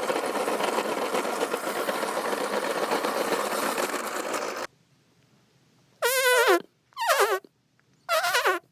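A loud, steady, dense rattling noise that cuts off abruptly after about four and a half seconds. Then, after a short gap, three short squeaky tones, each sliding down in pitch.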